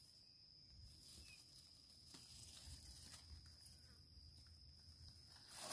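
Near silence: faint rustles and small clicks of hands picking mushrooms from dry leaf litter, over a faint steady high-pitched tone.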